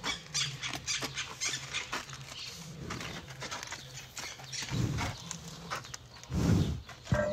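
White rhinoceros close by, blowing two heavy breaths through its nostrils about five and six and a half seconds in, after a run of light clicks and crunches.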